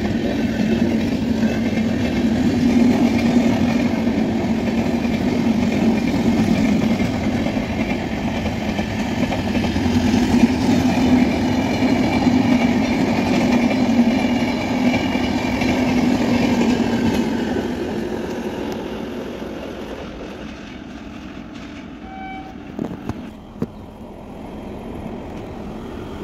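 Express train's LHB passenger coaches rolling past on the track: a steady, dense rumble of wheels on rails that fades away after about 17 seconds. A much quieter background follows, with a few short faint tones near the end.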